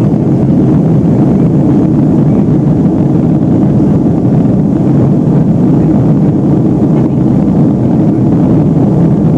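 Boeing 757-200 cabin noise in the climb after takeoff: its two Pratt & Whitney PW2037 turbofans and the airflow past the fuselage make a loud, steady, deep rush with no change.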